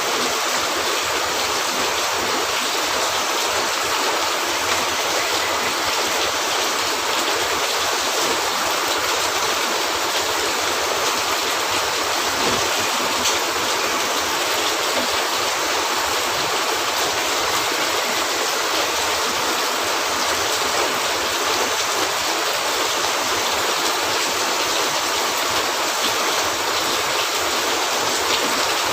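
Steady rain on a cabin roof: an even, unbroken hiss of falling water.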